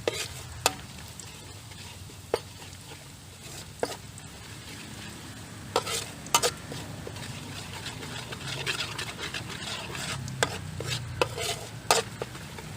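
Ginger and garlic sizzling in hot oil in a pan while a spatula stirs them, with a steady frying hiss and sharp clinks of the spatula against the pan every second or two.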